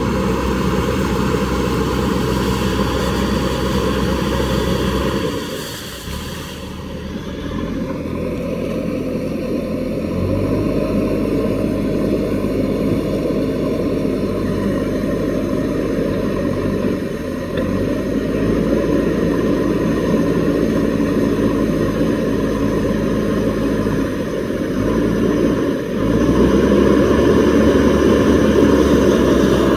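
JCB 3DX backhoe loader's diesel engine running under hydraulic load while the backhoe bucket scoops and throws river water over the machine, with water splashing. The engine sound drops about five seconds in, builds back after about ten seconds and gets louder again near the end.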